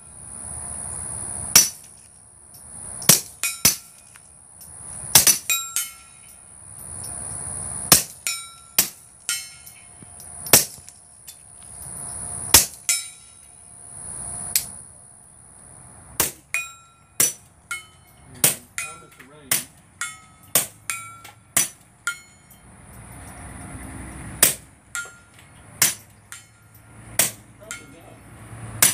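Two suppressed Browning Buck Mark .22 pistols firing subsonic rounds, giving sharp cracks. The shots come a second or more apart at first, then faster and closer together in the second half.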